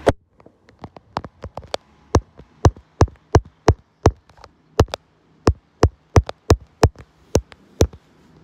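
A run of sharp, close taps or clicks, about three a second and uneven in loudness, the first one the loudest.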